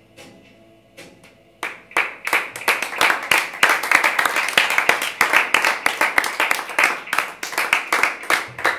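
The last guitar chord of the song fades out, and about a second and a half in a small group of people starts clapping in a small room. The applause is steady for several seconds and thins out near the end.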